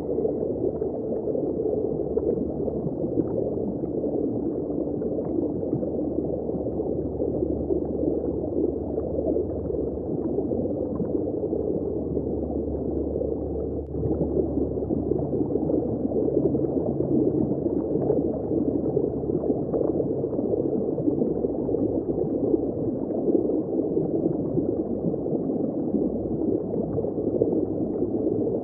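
Underwater ambience: a steady, muffled rush of sea water as surf breaks over rocks, heard from below the surface, with no high end to it. It grows slightly louder about halfway through.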